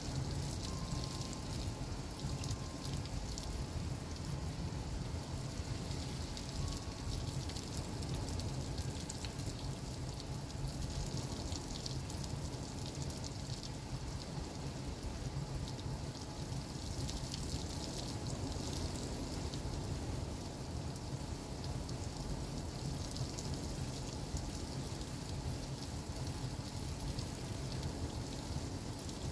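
Heavy thunderstorm downpour: a dense, steady patter of rain with no let-up.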